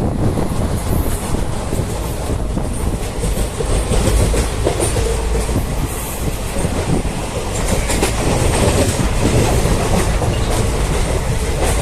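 Krishna Express passenger train running along the track: a steady, loud rumble of wheels on the rails.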